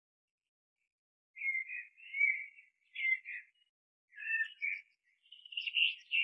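Bird chirping in several short bursts of song, starting about a second and a half in.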